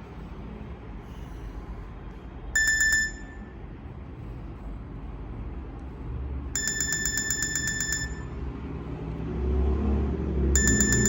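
Nokia 6500 slide phone's loudspeaker playing a high, rapidly pulsing electronic beep tone in three bursts. The first is short, about two and a half seconds in. The second lasts over a second, starting about six and a half seconds in. The third starts near the end.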